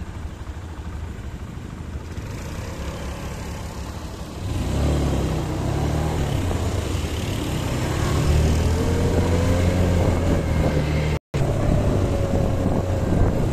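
Quad bike (ATV) engines running along a trail: a low hum at first, getting louder about four and a half seconds in as the engine speeds up, its pitch rising slowly. The sound drops out for an instant a little after eleven seconds.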